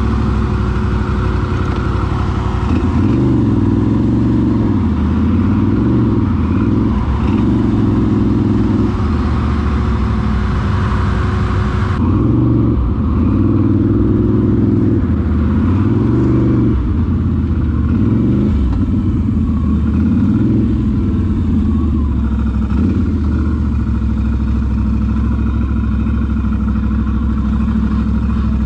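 ATV engine running under load on a trail, its revs rising and falling over and over as the throttle is worked.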